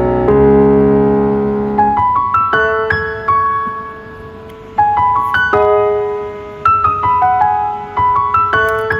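Background piano music: held chords at first, then a slow melody of single notes.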